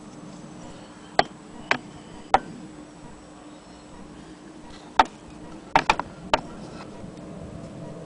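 Sharp metal clicks and knocks from a cast-iron Willcox & Gibbs sewing-machine hand-crank wheel being handled and turned. There are seven in all, three in the first few seconds and four close together past the middle.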